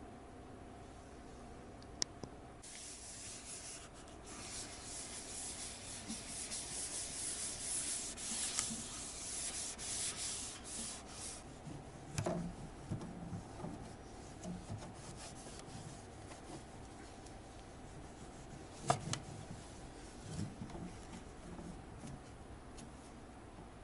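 A cloth rubbing over the plastic front panel and taps of a water dispenser: a dry rubbing hiss for several seconds, then a few soft knocks and a sharp click as the cloth moves over the taps.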